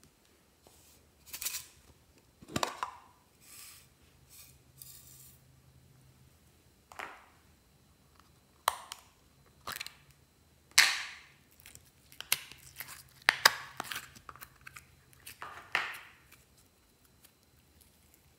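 Glossy slime and small plastic slime containers being handled: a series of short, separate sticky and crackling noises with a few sharp clicks, coming more often in the second half.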